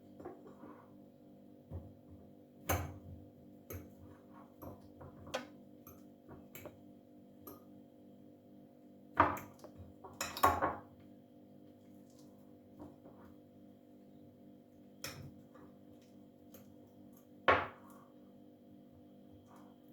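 Kitchen utensils and dishes clinking and knocking at irregular intervals, with a few louder clatters about halfway through and near the end, over a steady low hum.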